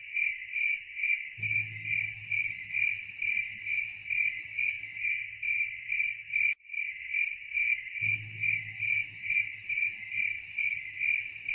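Stock cricket-chirping sound effect, the 'awkward silence' gag: a high chirp repeating about twice a second, with a brief break about six and a half seconds in where the loop restarts.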